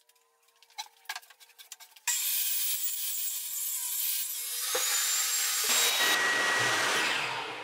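Table saw ripping a wide wooden board, its cut starting suddenly about two seconds in after a few faint clicks and running loud and steady for about five seconds before fading near the end.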